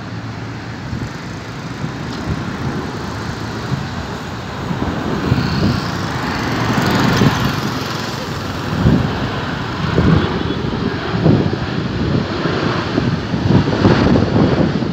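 Boeing 737-800 airliner's CFM56-7B turbofan engines on final approach, a steady jet noise that grows louder from about four seconds in as the plane nears. Gusts of wind buffet the microphone in the second half.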